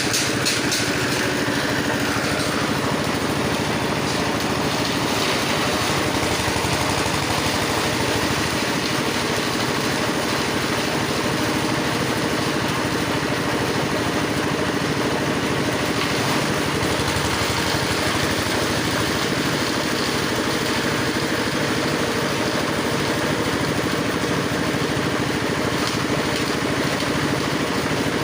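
Engine-driven grass chopper (chaff cutter) running steadily, its small engine holding an even speed.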